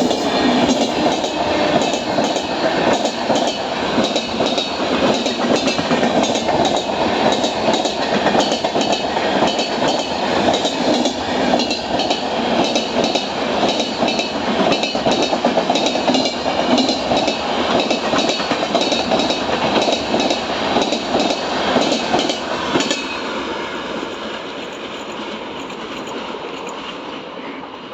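Passenger express train running through at speed, its coach wheels clattering over rail joints in a rapid, uneven run of clicks. About 23 seconds in, the clicking stops and the rumble fades away.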